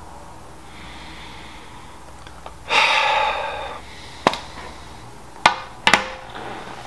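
A person lets out a long, breathy exhale like a sigh. It is followed by three short, sharp taps or clicks spread over the next two seconds.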